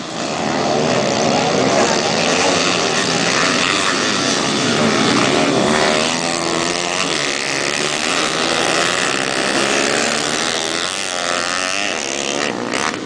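Several racing pit bike engines revving hard, overlapping as their pitches rise and fall with throttle and gear changes.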